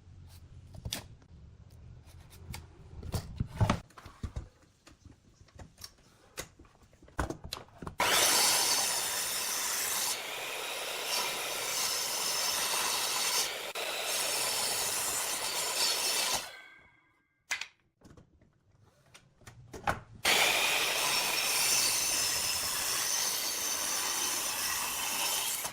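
A woodworking power tool working wood, run in two stretches of about eight and five seconds. Its motor whine fades as it stops between them. Before the tool starts there are scattered knocks and clicks of wood being handled.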